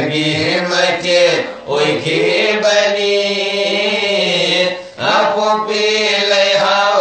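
A group of men singing a Manipuri marifat, a Muslim devotional song, in a chanting style. They hold long, wavering notes and pause briefly for breath about one and a half and five seconds in.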